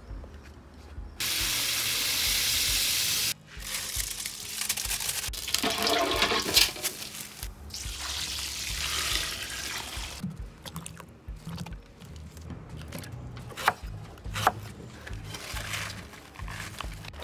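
Thick coconut milk pouring in a stream onto rice in a metal pot, a liquid pouring and splashing sound. Near the start there is a loud steady hiss lasting about two seconds, and later there are a few sharp clicks and knocks.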